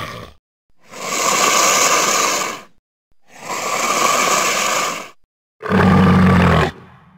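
Designed sound-effect roars of the Indoraptor dinosaur hybrid: three separate roars with short silences between them. The first two are long and raspy, about two seconds each. The third is shorter and deeper and trails off near the end.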